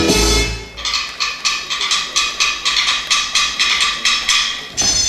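Dance music breaks off, then a wood-block-like percussion clicks in a fast even rhythm, about four to five strokes a second, for about four seconds before new music starts near the end.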